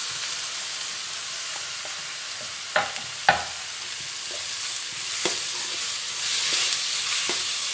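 Chopped onions and tomatoes sizzling in hot oil in a steel kadai as a steel spatula stirs them. Two sharp metal clinks come about three seconds in, with lighter taps later.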